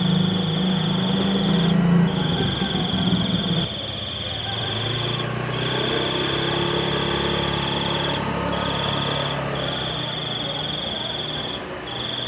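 A steady high-pitched insect trill, cricket-like, broken by short gaps every second or two. Under it runs a low engine-like hum, loudest in the first few seconds and fainter after that.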